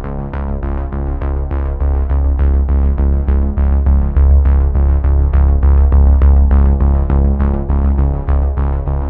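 Electronic background music: synthesizer notes pulsing at a steady beat over a deep sustained bass.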